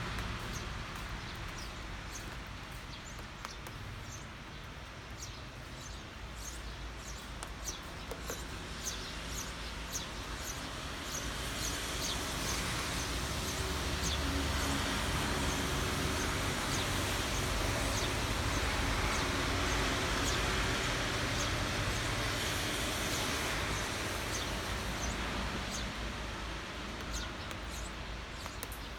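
Steady rain falling, with many small drops ticking sharply on top of the hiss and a low rumble underneath; it swells a little in the middle and eases toward the end.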